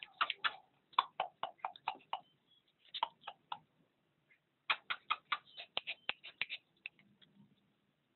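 Puppies play-fighting, making runs of short, sharp sounds a few a second, in four bursts with short gaps between.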